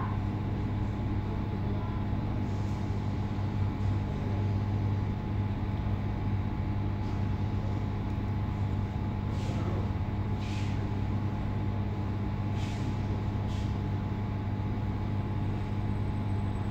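A steady low hum with a faint high tone above it, and a few faint clicks in the second half.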